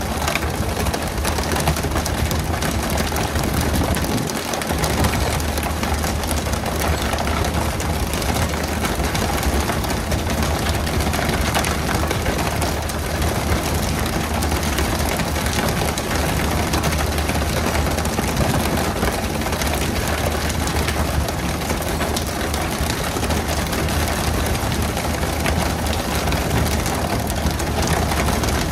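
Fishing boat's engine running steadily with a low hum, under a constant rushing noise.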